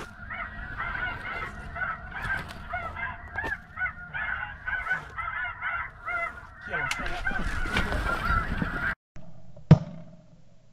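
Snow geese calling, many short high honks overlapping continuously. Near the end the calling cuts off and a single shotgun shot cracks.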